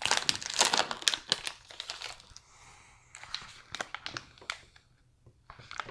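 Snack wrapper crinkling and rustling as a snack package is handled, with quick irregular crackles and a quieter gap about halfway through.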